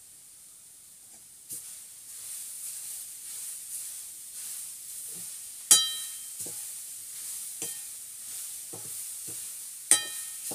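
Vegetables and soya chunks sizzling in a steel kadai while a spoon stirs and scrapes them, the sizzle starting about a second and a half in. Two loud ringing clanks of the spoon striking the pan come about halfway through and near the end.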